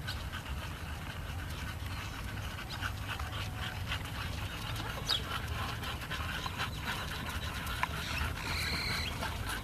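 Several English bulldogs panting steadily as they trot on leashes during an exercise walk, with scattered scuffs and taps of footsteps on the path.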